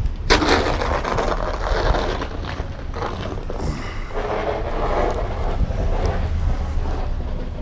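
Storm wind buffeting the microphone as a steady low rumble, with two swells of rushing hiss.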